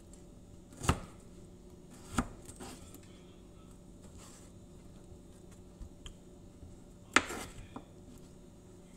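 Kitchen knife chopping through peeled pineapple and knocking on the cutting board: sharp chops about a second in and two seconds in, then the loudest about seven seconds in, with a few lighter taps between. A faint steady hum runs underneath.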